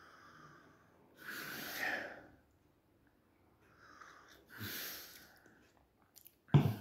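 Hot coffee slurped from a mug in two noisy sips of about a second each. A short, much louder sound comes near the end.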